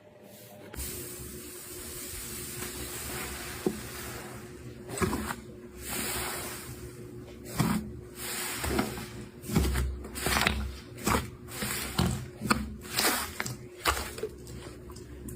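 Slime being pressed and worked by hand: a soft hiss for the first few seconds, then a run of sharp crackles and wet squishing pops, several a second.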